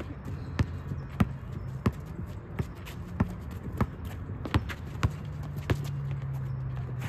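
A basketball being dribbled at an even pace, about nine bounces, roughly one every two-thirds of a second, over a low steady hum.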